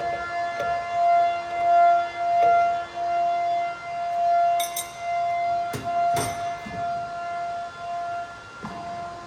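CNC router spindle whining at a steady high pitch while it cuts, the level swelling and dipping with the cutting load, with a few sharp clicks in the middle.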